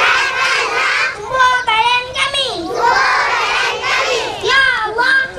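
A young child singing or chanting into a microphone in a high voice, with a group of children's voices joining in.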